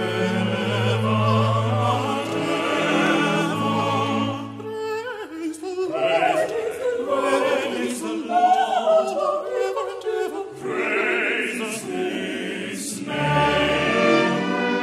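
Mixed choir singing a gospel anthem in parts, with trumpets, trombone and keyboard accompanying. Held chords for the first few seconds give way to shorter phrases with brief breaks between them.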